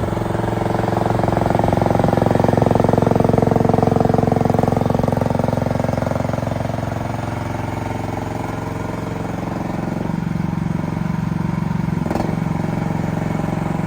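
Mini excavator engine running steadily while the machine is worked, its pitch sagging and recovering as the hydraulics take load. It is loudest in the first few seconds and eases off past the middle.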